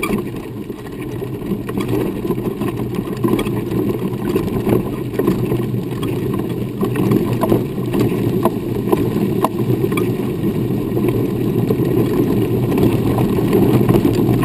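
Steady rumble of wheelchair wheels rolling over a packed dirt trail, with scattered small clicks of grit, picked up by a camera mounted low on the moving chair.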